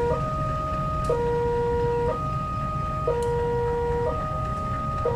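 Two-tone electronic railway level-crossing alarm sounding, switching between a high and a low tone about once a second, over the low rumble of a KAI CC 201 diesel-electric locomotive idling.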